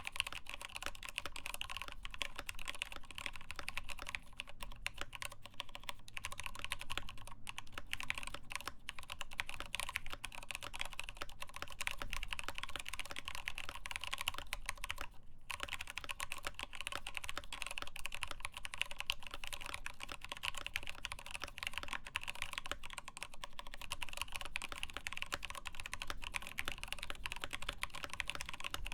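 Continuous typing on a mechanical keyboard: a Cooler Master MasterKeys Pro S in a Norbatouch case, with lubed Tealios linear switches, a steel plate and POM keycaps. A fast, dense run of key clacks, with a brief pause about fifteen seconds in.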